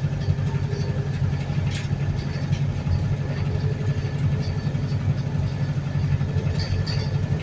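Diesel engine of a Wright New Bus for London hybrid double-decker running steadily, heard from inside the bus, with a low, even rumble and faint light clicking, which the uploader puts down to the fuel injectors.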